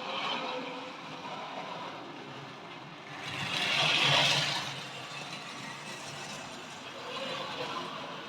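Model trains running on the layout track: a steady whir of small motors with wheels rattling over the rails. It gets louder for a second or so about halfway through as a train passes close by.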